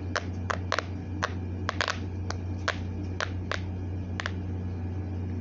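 Small plastic fidget toys being handled, giving about a dozen sharp, irregular clicks and pops that stop a little after four seconds, over a steady low hum.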